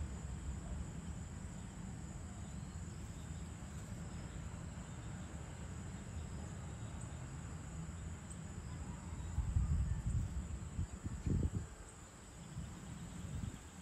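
Evening outdoor ambience: a steady high insect chirring, crickets, over a low rumble that swells briefly about ten seconds in.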